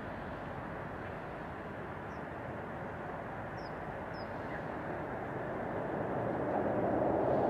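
Steady rushing noise of distant traffic and a light-rail train on an elevated track, swelling louder over the last couple of seconds, with a few faint short high chirps in the middle.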